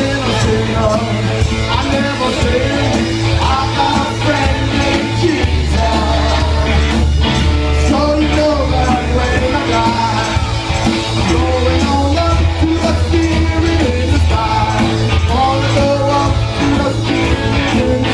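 Live rock band playing loud, with a male lead singer over a heavy bass line and drums, heard from within the audience.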